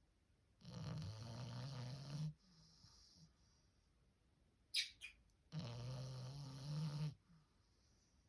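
A four-month-old French bulldog puppy snoring: two long snores about four and a half seconds apart, each lasting about a second and a half. A brief high squeak comes just before the second snore.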